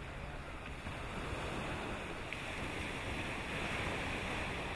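Surf washing on a shore, with wind on the microphone: a steady rushing hiss that swells gently and eases again near the end.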